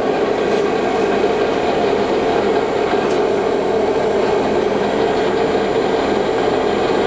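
Supertec STC-12 centerless grinder running: a steady, dense mechanical noise with a strong hum, swelling in the first moment and then holding even.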